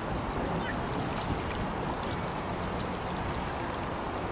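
Small waves lapping and splashing at the edge of an estuary shore, over a steady low rumble.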